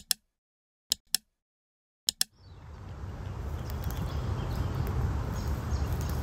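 Three quick pairs of mouse clicks from a subscribe-button animation. About two seconds in, outdoor ambience fades in: a steady low rumble with faint bird chirps above it.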